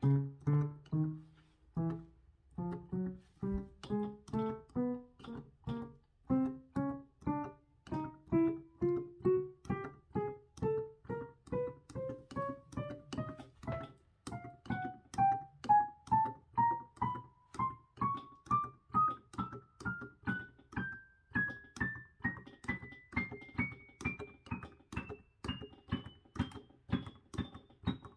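Yamaha P-105 digital piano sounding single notes one key at a time, about two a second, climbing steadily from the low-middle register up to the top of the keyboard.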